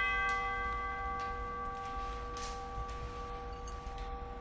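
A bell, struck once just before, rings on and slowly fades, several clear tones sounding together: the bell rung at the elevation of the consecrated bread in the Eucharist.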